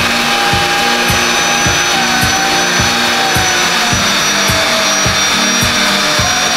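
Electric air pump running steadily to inflate a Bestway inflatable pool, a loud blowing motor noise whose whine sinks slightly in pitch as it goes.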